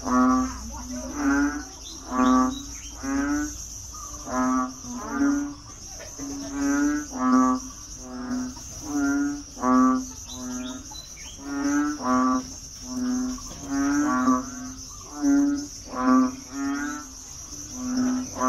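A frog's croaking breeding calls, repeated about once a second, each a short pulsed croak. A steady high chorus of insects, such as crickets, runs underneath.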